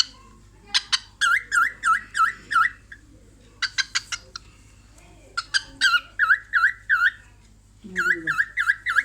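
Cockatiel calling: clusters of short, sharp chirps alternating with runs of five or six quick, dipping whistled notes in a row, which come three times.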